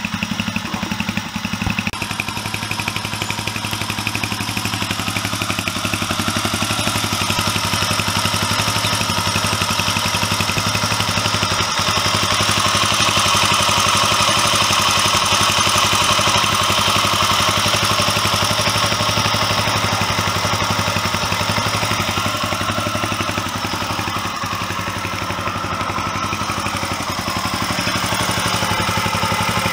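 Freshly rebuilt Honda XL250S single-cylinder four-stroke engine idling steadily with an even beat, somewhat louder for a while in the middle.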